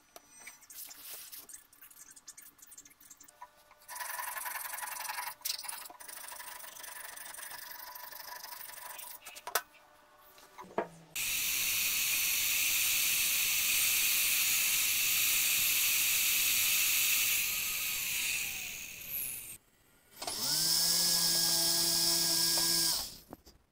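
An electric power tool's motor starts about eleven seconds in and runs loudly and steadily for about eight seconds, stops, then runs again for about three seconds near the end before winding down. Quieter, intermittent tool work comes before it.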